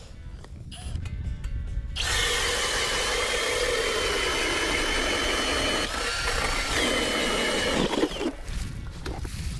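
Power ice auger drilling a hole through lake ice. The motor starts up about two seconds in and runs steadily with a high whine, its note sagging a little as the blade cuts, then it winds down near the end.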